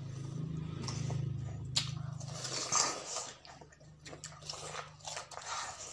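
Several people biting into and eating juicy watermelon: irregular wet crunching, slurping and sucking of the flesh, over a low steady hum that fades near the end.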